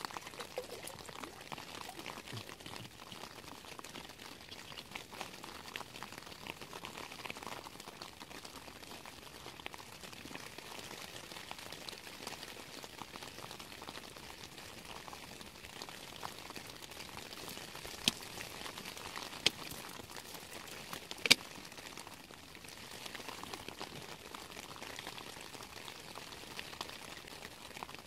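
Steady hiss of rain on a tent, with water poured from a plastic bottle into a camping-stove pot at the start. Three sharp clicks come close together about 18 to 21 seconds in.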